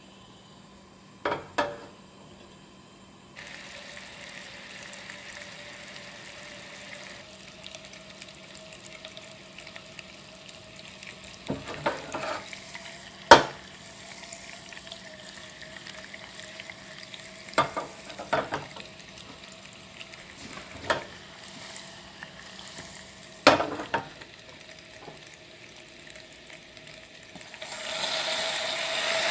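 Sugar syrup bubbling and sizzling in a ceramic pot over a gas burner as it cooks down to caramel, with a few sharp clinks scattered through. Near the end the sizzling surges much louder as heavy cream goes into the hot caramel.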